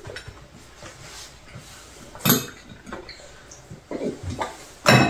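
Chopsticks and spoons clinking against ceramic bowls at a dinner table, with two louder sharp clinks, about two seconds in and near the end, and a few faint knocks between.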